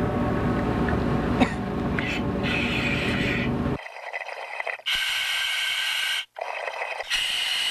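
A steady rush of air and close handling noise while a full-face scuba mask is fitted. From about halfway the sound thins, and two hissing breaths through the mask's regulator come over its built-in microphone, the first about a second long and the second shorter.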